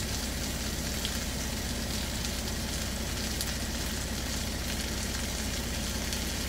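Potatoes, onions and mushrooms frying in oil in a skillet: a steady sizzle, with a low steady hum underneath.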